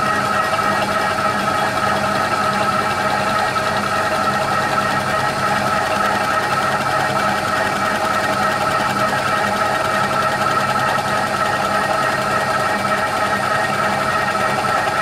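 TOS FNK25A milling machine with its milling cutter running across an aluminium cylinder head, taking a finishing back cut at a slow 2 inches a minute without added depth: a steady machine whine with a strong high tone.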